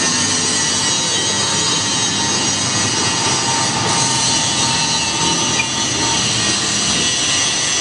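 Industrial straight-knife grinding machine running: a steady, loud grinding noise with faint steady machine tones.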